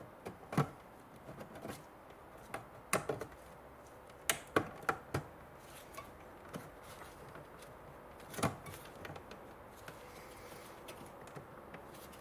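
Scattered clicks and clunks of hands handling a car radio's metal mounting cage and fittings, irregular and spaced out, with the loudest knock about eight seconds in.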